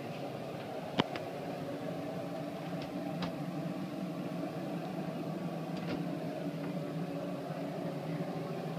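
A motor's steady hum with several tones, like an appliance running. Over it, one sharp click about a second in as the wooden cabinet door is opened, and a few fainter ticks later.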